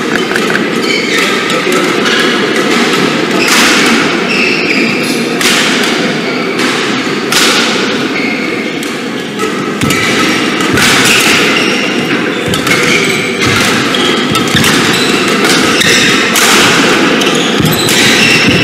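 Badminton play on an indoor court: sharp racket hits on the shuttlecock and thuds of players' footwork, with short high shoe squeaks on the court mat between them, over a steady low background noise.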